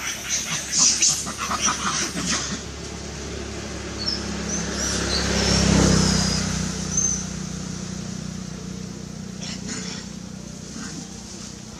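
A motor vehicle passes, its engine growing louder to a peak about halfway through and then fading away. A short spell of crackling rustles comes near the start.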